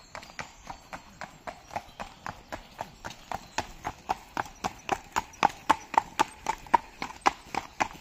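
A horse walking on a tarmac path, its hooves clip-clopping in a steady rhythm of about four strikes a second. The hoofbeats grow louder as the horse comes close and passes.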